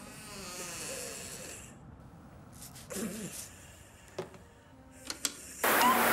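Stop-motion cartoon sound effects: a hiss with a faint wavering tone, a short low pitched sound about three seconds in, a few sharp clicks, then a sudden loud, steady rushing noise near the end.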